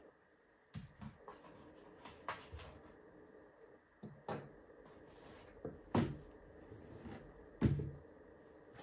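Accessories and a thermal monocular being taken out of a cardboard box and set down on a wooden table: a series of short knocks and taps with handling of the packaging, the two loudest about six and seven and a half seconds in.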